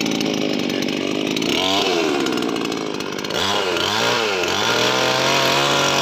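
J.K. two-stroke petrol chainsaw free-revving with the chain running in the air, not cutting. The throttle is blipped once about two seconds in and several times in quick succession around the middle, the pitch rising and falling each time, before the engine settles into steady running.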